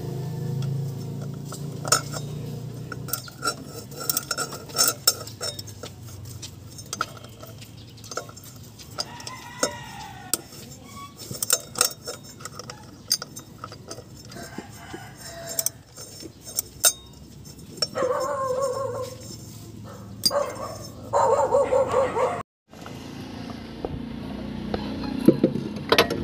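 Scattered metallic clinks and taps from hand work on the engine's belt pulleys, coming irregularly.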